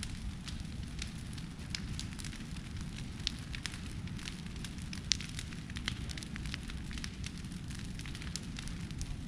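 Brush pile burning: a steady low roar of flames with irregular sharp crackles and pops throughout, one louder pop about five seconds in.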